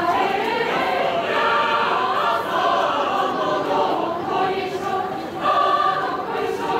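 A school choir of mixed voices singing together, sustained sung phrases with a swell about two-thirds of the way through.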